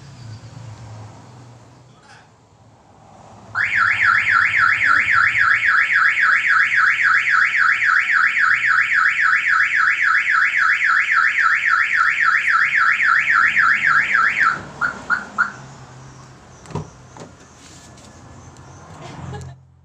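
2019 Toyota Calya's car alarm siren goes off a few seconds in: a loud, fast-warbling wail for about ten seconds, then three short chirps before it stops. It has been set off by the ringing and vibration of a mobile phone tucked into the car seat.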